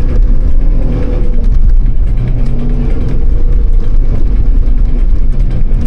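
Off-road vehicle's engine running under load while driving, its pitch shifting up and down over a loud low rumble.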